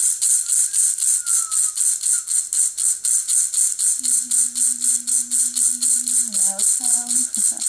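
Healing rattle shaken in a steady, even rhythm, about five shakes a second, calling in energy. About halfway through a voice joins, humming a long low note, then a shorter one near the end.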